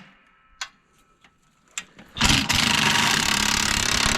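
Power impact wrench running hard for about two seconds, starting about halfway in, trying to break loose a badly rusted track-roller bolt on a compact excavator's undercarriage. A couple of light metal clicks come first as the socket is fitted.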